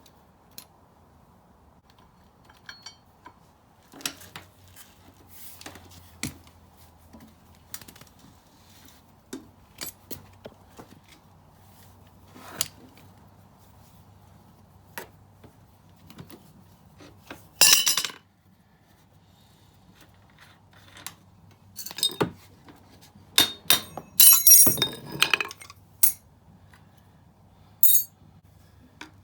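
Hand tools and metal motorcycle parts clinking and knocking while the rear axle and brake caliper mount are worked on, in scattered single clicks with a louder run of clanking about two-thirds of the way through, over a faint low steady hum.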